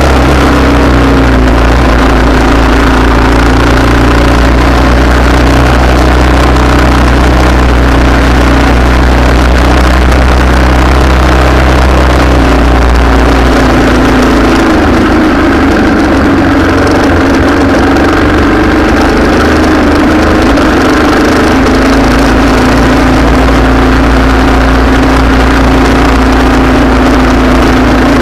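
A motor vehicle engine idling steadily, loud and close. About 13 seconds in, its low steady hum breaks up and the engine note shifts.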